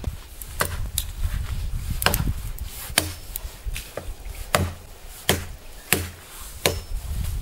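Repeated sharp chopping strokes on wood, about one every two-thirds of a second, as small wood is cut by hand for a wood-chip stove.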